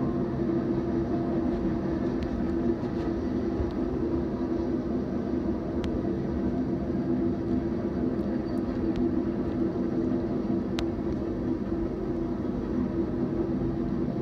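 Train rolling steadily past: a continuous rumble of wheels on rail with a steady low hum, and a couple of sharp clicks.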